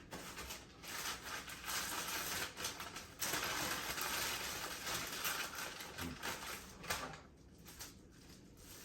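Packaging being handled and unwrapped: a dense crinkling rustle with many small clicks and crackles, loudest in the middle, dying down near the end.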